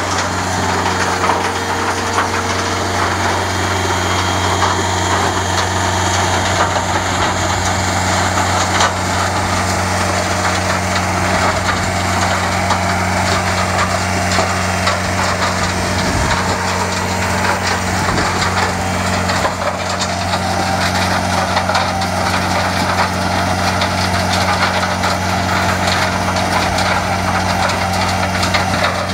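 Ultra T1500 tracked trommel screen working: a steady engine hum under a constant dense rattle of soil and stones tumbling through the rotating drum and dropping off the conveyors.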